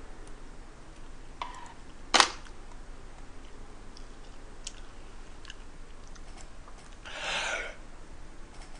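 Quiet eating at the table: faint chewing and small mouth and utensil ticks, with one sharp click about two seconds in and a short breathy rush about seven seconds in.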